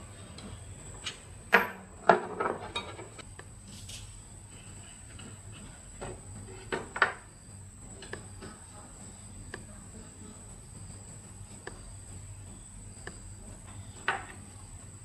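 Scattered clinks and knocks of hard objects being handled, loudest about two seconds in and again around seven seconds, with one more near the end, over a steady low hum and a faint high whine.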